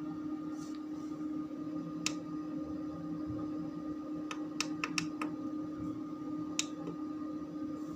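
Steady hum with several sharp clicks: one, then a quick run of five, then one more near the end.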